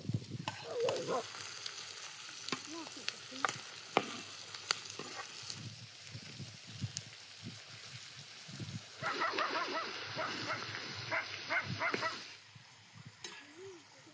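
Meat sizzling and crackling in a wide steel wok-shaped pan over an open fire, with a louder busier stretch of sizzling and clatter near the end as chopped tomatoes and peppers are scraped into the pan from a bowl with a slotted spoon.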